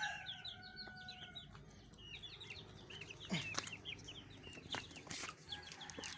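Chickens calling, a rapid run of many short high chirps and clucks, with a few sharp clicks in the middle.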